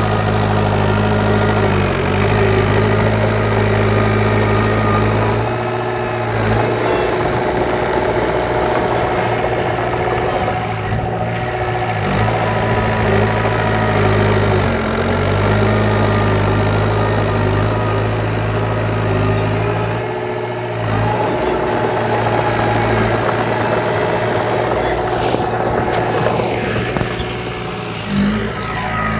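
Diesel engine of heavy earthmoving machinery running steadily, its note shifting in pitch several times as the load or throttle changes.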